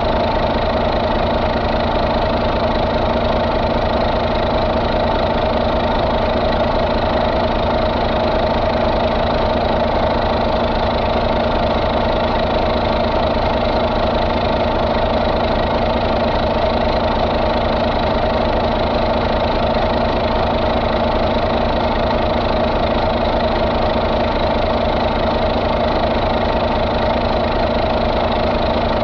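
2015 Volvo D13 inline-six diesel engine idling steadily.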